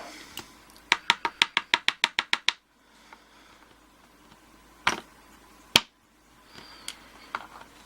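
Small hard clicks from handling the disassembled padlock and its pin stacks: a quick run of about a dozen clicks, roughly eight a second, then two single clicks a second apart.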